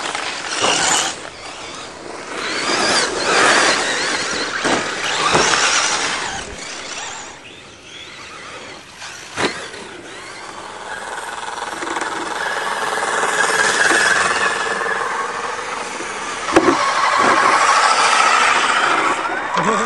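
Electric motors of radio-controlled trucks whining, rising and falling as they speed up and slow down on dirt. Later comes a steadier, wavering whine from scale crawler trucks, with a couple of sharp knocks.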